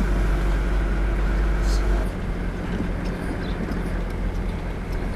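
Car being driven, heard from inside the cabin: a steady low engine and road rumble that eases about two seconds in.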